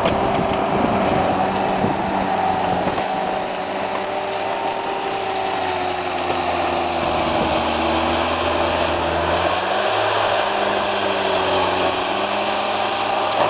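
Cat 247B compact track loader running steadily while plowing snow, its diesel engine note sagging and recovering a few times under load.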